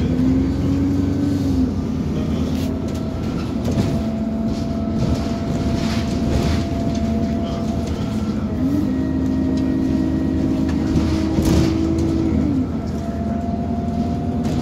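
Inside an Alexander Dennis Enviro400 double-decker bus on the move: the engine and drivetrain run with a steady rumble and a whining tone. The whine steps up in pitch about nine seconds in and drops back a few seconds later, and there are a couple of brief knocks.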